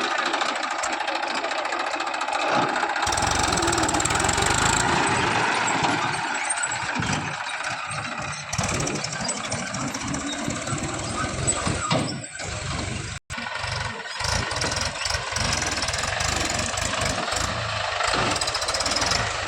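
Farm tractor diesel engines running under load while struggling in deep mud. The sound changes abruptly a few times, with a brief dropout about 13 seconds in.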